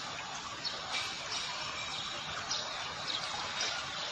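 Floodwater flowing, a steady rushing hiss, with a few faint high chirps now and then.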